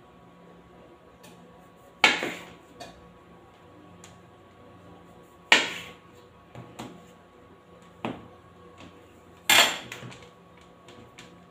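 Large kitchen knife knocking against the counter as half-cake dough is cut into pieces: three sharp knocks a few seconds apart and a softer one, with lighter taps between.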